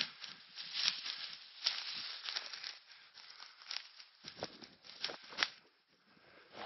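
Footsteps crunching and rustling through tall dry grass and brush, an irregular run of crackles.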